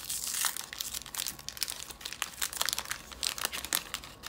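Wax-paper wrapper of a 1983 Fleer baseball card pack being peeled open and unfolded by hand: a dense run of crinkling paper crackles.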